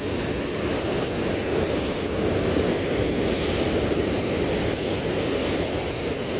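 Surf breaking steadily on a sandy beach, with wind blowing on the microphone.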